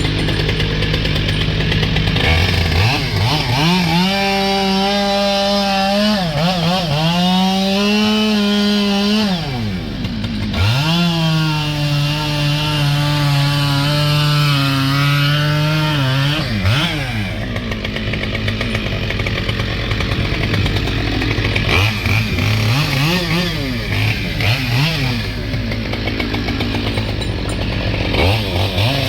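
Two-stroke chainsaw cutting through a tree log in two long runs, its engine pitch climbing and sagging as it loads in the cut, then shorter bursts of revving near the end. A steady low engine hum runs underneath.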